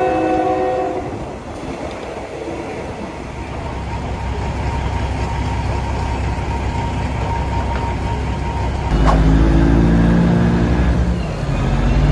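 Diesel passenger train running, with a thin steady high whine from about two to eight seconds in. About nine seconds in it changes suddenly to the louder low hum of a diesel railcar's engine running while standing at a halt.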